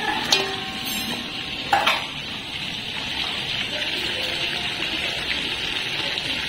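Food frying in hot oil, a steady sizzling hiss, with two short clinks, about a third of a second in and near two seconds.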